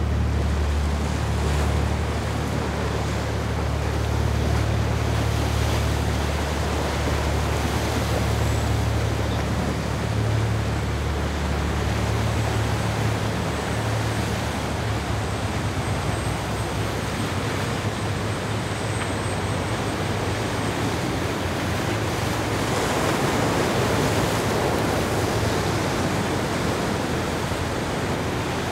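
Viking 80 Convertible sportfishing yacht's twin diesel engines running at speed as a steady low hum, under the rush of the hull's spray and breaking waves. The engine hum weakens about two-thirds of the way through, and the rush of water swells a little later.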